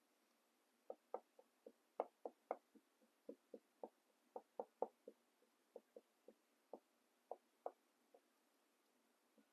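Dry-erase marker tapping and sketching short strokes on a whiteboard: a string of light, irregular knocks, about three a second, starting about a second in and stopping shortly before the end.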